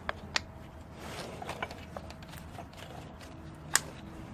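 Light, scattered clicks and taps of clutch parts and a clutch alignment tool being handled and fitted, with one sharper click about three and a half seconds in, over a faint steady hum.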